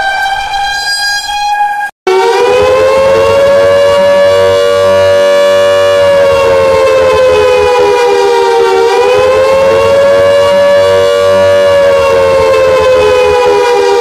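Emergency alarm tones. A steady horn-like tone cuts off about two seconds in. After a brief break, a loud siren-style alert starts: several pitches sounding together as one chord, slowly rising and falling in pitch twice.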